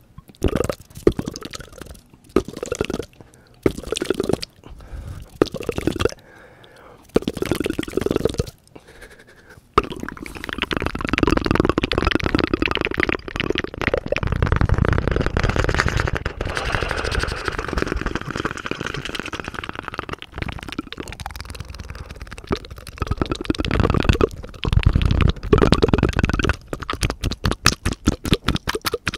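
Close-miked ASMR mouth sounds: rapid wet tongue and finger fluttering at the lips, made behind hands cupped over the mouth. Short separate bursts for the first ten seconds or so, then a long unbroken stretch of dense fluttering, ending in a fast run of clicks.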